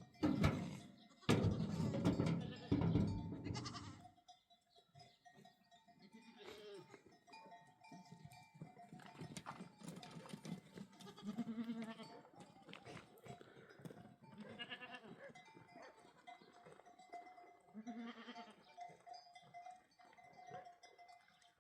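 Animals calling: several loud calls in the first four seconds, then quieter scattered calls, over a faint steady tone.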